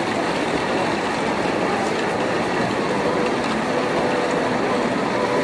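Steady din of a marching crowd, many voices blending into one continuous noise.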